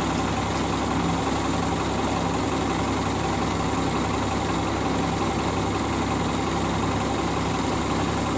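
Heavy truck engine running steadily at low revs while towing a house on a moving trailer.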